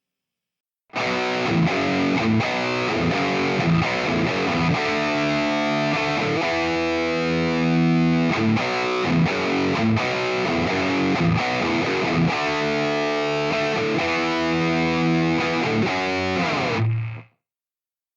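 Distorted electric guitar played through a Valeton GP-200 multi-effects processor's artist preset, a riff of held notes and chords. It starts about a second in and cuts off near the end.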